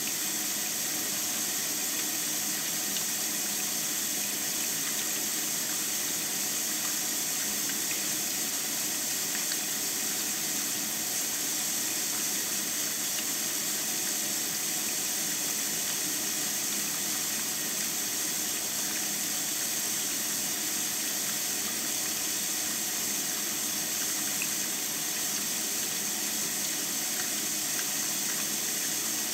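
Water running down the stepped spillway of a Lego model dam, a steady, even splashing hiss.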